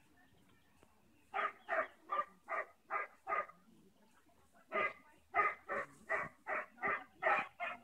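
A dog barking in quick succession: a run of about six short barks, a pause of about a second, then about eight more.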